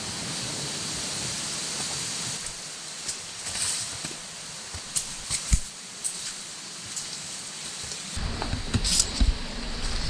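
Steady rushing hiss of the river water beside the trail, with scattered footsteps on stones and leaves brushing past as a hiker walks. A low rumble, typical of wind on the microphone, comes in about eight seconds in.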